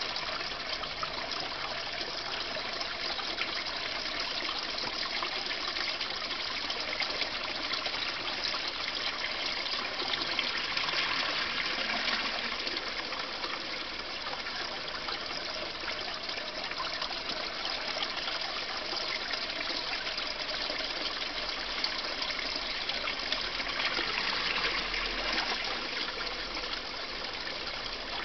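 Steady trickling and splashing of koi-pond water, running on evenly with slight swells.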